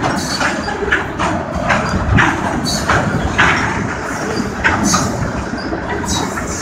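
Freight train tank cars rolling past close by. A steady rumble, with irregular sharp clicks from the wheels on the rails.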